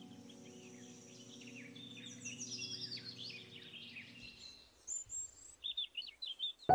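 Quiet birdsong, many quick chirps and sweeping calls, over a soft held music chord that fades out a little past halfway. Piano music comes in loudly at the very end.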